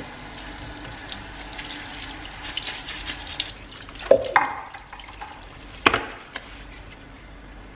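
Kitchen tap running steadily into a ceramic sink as small pumpkins are rinsed and rubbed by rubber-gloved hands. A louder rub about four seconds in and a sharp knock just before six seconds as a pumpkin is handled and set down in the sink.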